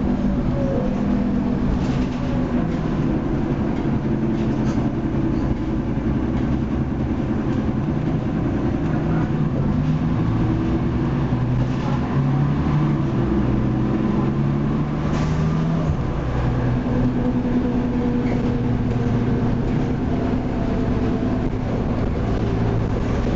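Leyland Lynx Mk2 bus with its Cummins L10 diesel engine under way, heard inside the passenger saloon: a steady engine drone with body rattle. The engine note climbs from about ten seconds in, then drops back about sixteen seconds in.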